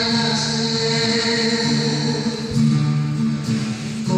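Music: a man singing long held notes into a microphone, amplified through a public-address system, with instrumental backing.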